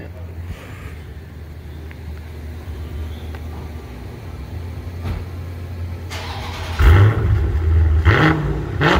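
Dodge Challenger Scat Pack's 392 Hemi V8, its mid mufflers deleted, idling steadily through the exhaust. In the last few seconds it is revved a couple of times, each rev a loud surge rising in pitch.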